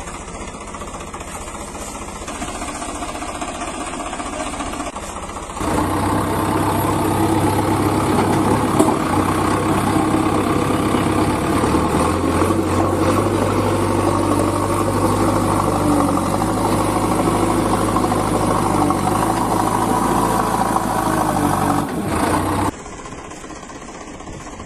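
An engine running steadily. It gets louder and fuller about six seconds in, then drops back abruptly shortly before the end.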